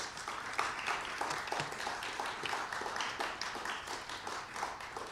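Audience applauding: many hands clapping at once, thinning out near the end.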